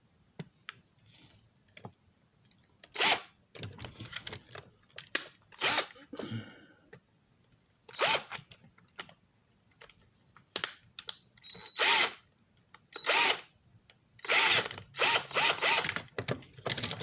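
Cordless drill run in repeated short bursts of under a second, some with a rising motor whine, as a larger bit drills the center hole of a model passenger car truck's bolster. The bursts come closer together near the end.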